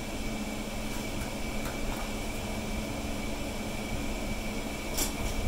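Steady mechanical hum with an even hiss, like a fan or machine running, and a short sharp knock near the end as the fuel tank is worked loose by hand.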